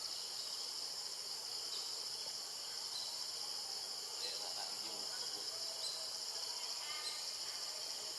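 Steady high-pitched drone of an insect chorus, with faint short chirps now and then.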